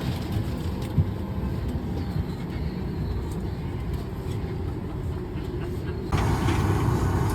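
Airliner cabin ambience during boarding: a steady low rumble of the aircraft's air and ventilation noise. About six seconds in, a louder rushing hiss joins suddenly and holds.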